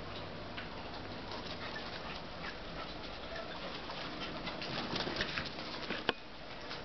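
A small dog's paws pattering and ticking on carpet as it trots and runs about, busiest near the end, with one sharp knock about six seconds in.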